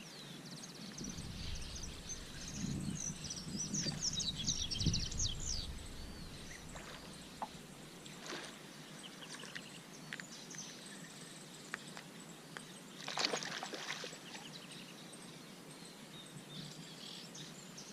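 Outdoor ambience with a bird chirping in quick repeated notes during the first five seconds, over a low rumble of wind or handling noise. A few faint clicks follow, and a short noisy rush about thirteen seconds in.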